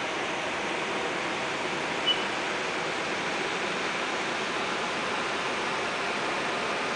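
A steady rushing noise that holds unchanged throughout, with one short, high chirp about two seconds in.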